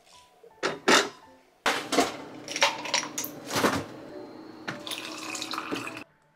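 Two sharp clicks, then clinks and knocks over a steady rushing noise for about four seconds, which cuts off abruptly.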